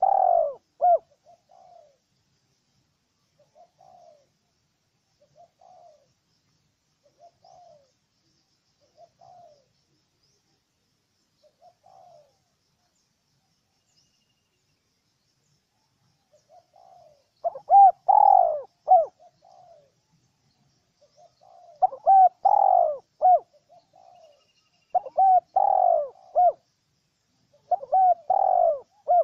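Spotted dove cooing. A loud coo phrase opens, followed by soft single coos about every second and a half, then a pause. From about halfway on, loud coo phrases come every three to four seconds.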